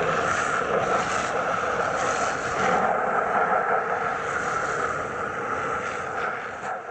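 Garden hose spray nozzle jetting water into a robotic pool cleaner's plastic filter basket, the spray hitting the pleated filter panels and splashing onto concrete. A steady hiss that eases off slightly near the end.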